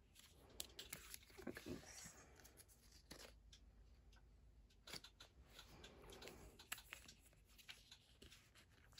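Faint rustling and light clicks of a photo card being slid into a clear plastic binder pocket page, with scattered small handling noises.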